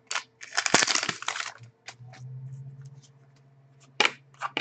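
A foil trading-card pack wrapper crinkling as it is torn open, then a few short sharp clicks near the end.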